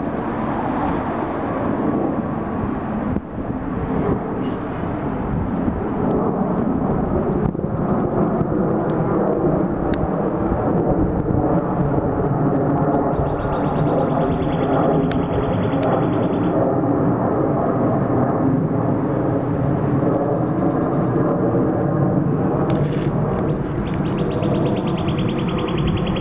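Background music with sustained chords that change every few seconds.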